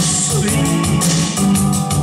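Pop-rock song with a steady drum-kit beat, guitar and keyboards, with a voice singing into a microphone over it.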